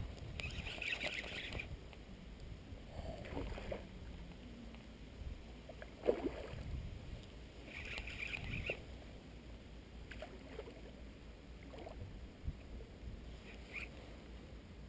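Water lapping against a small boat, with a low rumble of wind and handling on the microphone. There are a few knocks and three short higher bursts: about a second in, near eight seconds, and briefly near the end.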